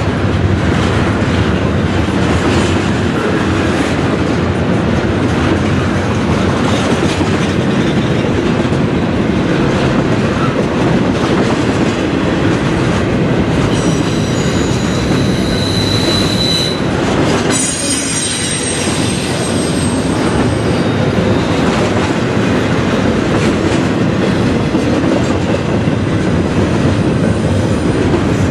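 Double-stack container train rolling past on well cars: a steady rumble and clatter of wheels on the rails. About halfway through, thin high squeals come from the wheels for a few seconds.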